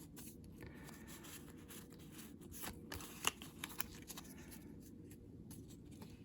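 Faint handling of Pokémon trading cards: soft rustling with a few light ticks, the clearest in the middle, as the cards are shuffled and turned over.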